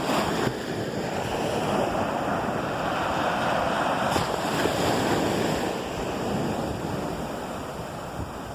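Ocean surf washing onto the beach, a steady rushing wash that swells and eases slowly, with wind buffeting the phone's microphone.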